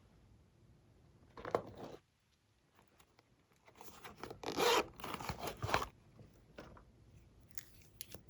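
Glossy slime being squeezed and stretched by hand, with crackling and rasping in two main bursts: a short one about a second in and a longer, louder one of about two seconds midway, then a faint one near the end.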